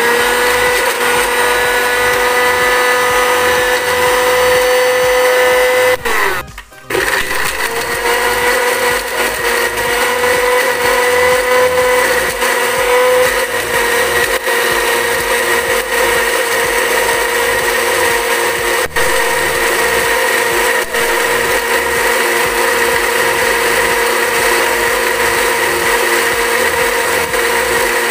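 Electric kitchen blender running at full speed, grinding ingredients into a paste with a steady motor whine. About six seconds in it stops briefly, its pitch falling, then spins up again and keeps running.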